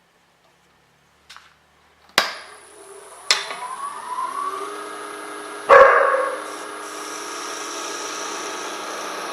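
Wood lathe motor starting after a couple of clicks, whining up in pitch over about two seconds and then running at a steady speed, with one loud knock a little past the middle.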